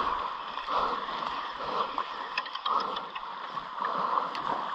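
Fishing reel being cranked to wind in a hooked snapper, a rough whirring that surges about once a second, with the fish splashing through the shallows and a few small clicks a little past the middle.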